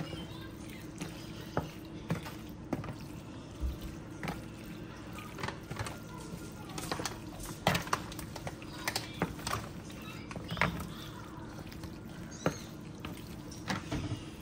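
Wooden spoon stirring and pressing cheese-sauced macaroni in a disposable aluminium foil pan. Wet squishing with irregular scrapes and crinkles of the thin foil, over a steady low hum.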